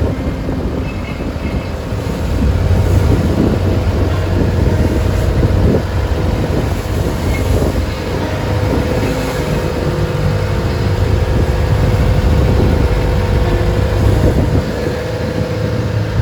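Engine of a traditional wooden passenger boat running steadily at sea, with wind buffeting the microphone.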